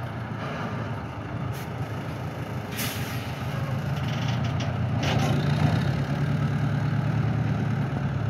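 Fortschritt ZT 303 tractor's four-cylinder diesel engine running steadily under load while hauling two trailers, getting louder about halfway through. A few short hisses of air are heard over it.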